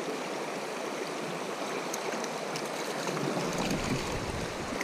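Shallow creek water running steadily over stones and gravel, with a low rumble on the microphone coming in near the end.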